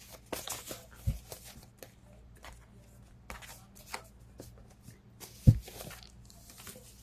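A deck of cards being shuffled by hand: quick papery riffles and clicks, with two dull thumps, one about a second in and a louder one about five and a half seconds in.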